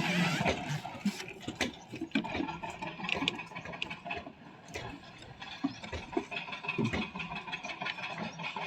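Construction-site noise: irregular knocks and taps, as of carpenters' hammering on formwork, over a steady engine running in the background.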